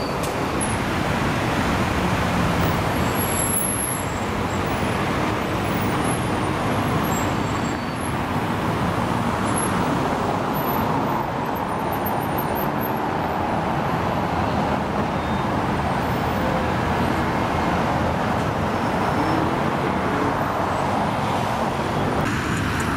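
Steady road traffic noise of cars and vans driving past on a busy city street, an even rumble with no sharp events.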